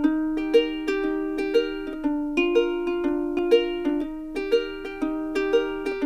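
Background music of light plucked-string notes, like a ukulele, played to a steady, bouncy beat.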